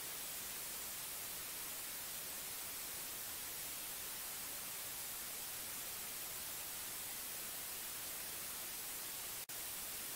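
Steady, even hiss like static, strongest in the high frequencies, with a momentary break about nine and a half seconds in.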